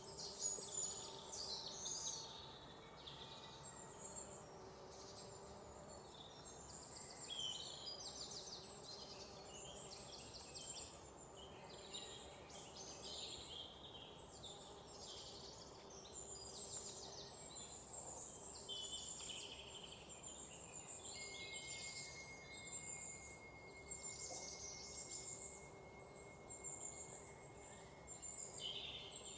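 Several birds chirping and trilling over one another in a continuous chorus, over a faint steady hiss. A thin, steady high tone comes in about two-thirds of the way through and holds to the end.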